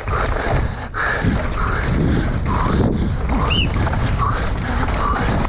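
Wind rushing over an action camera's microphone on an electric mountain bike ridden hard along an enduro trail, with steady rumble from tyres and frame. The rider's heavy panting recurs about once a second.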